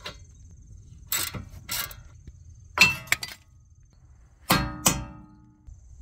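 Metal tools and brake hardware clinking and clanking: sharp metallic knocks in three pairs, some ringing briefly with a clear pitch.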